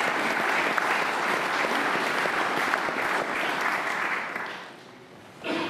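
Applause from a large seated audience in a big hall, dense clapping that dies away about four and a half seconds in. A brief louder sound follows just before the end.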